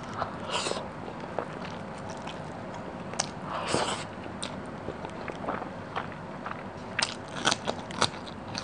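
Close-miked eating by hand: wet chewing and smacking mouth sounds with sharp mouth clicks as mouthfuls of fish curry and rice are taken, coming in short bursts, thickest near the end.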